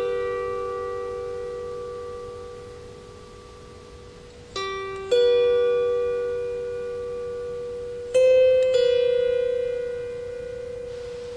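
Slow solo harp playing: pairs of plucked notes about half a second apart, each left to ring and fade over several seconds.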